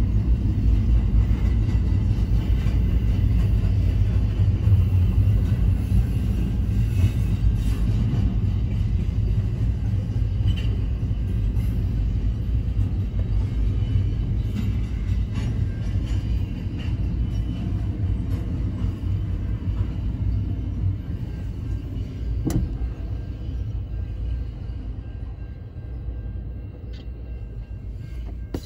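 Double-stack intermodal freight train's container cars rolling past with a steady low rumble, heard from inside a car, fading over the last several seconds as the end of the train goes by.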